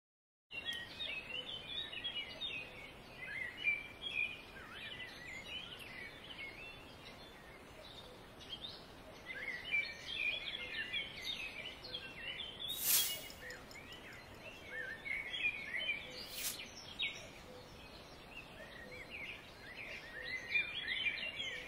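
Birds chirping and calling, many short overlapping chirps, with two short sharp noises a few seconds apart past the middle.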